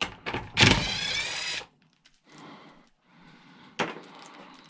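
A small power tool's motor whirring for about a second with a slightly wavering pitch, with clicks before it. Fainter rattling and a single sharp click follow as parts are worked loose.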